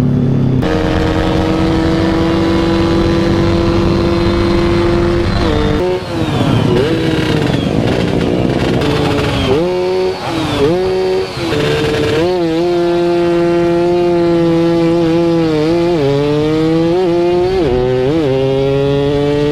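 Motorcycle engine running hard under way, held at steady high revs, with the revs dipping and recovering several times in the middle and again late on, then climbing steadily near the end.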